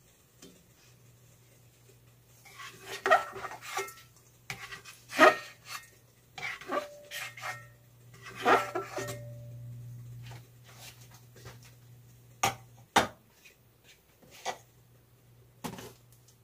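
A spatula scraping and knocking against a stainless steel pot while stirring garlic frying in oil, in irregular bursts with the pot ringing briefly after some knocks. A steady low hum runs underneath.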